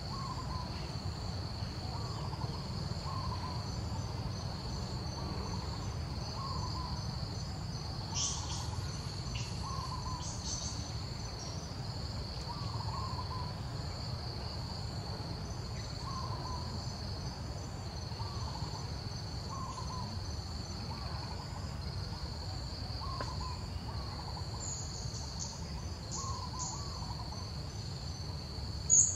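Steady high drone of insects, with a bird repeating a short, slightly falling note about once a second. A few brief high squeaks come and go, and there is one sharp sound just before the end.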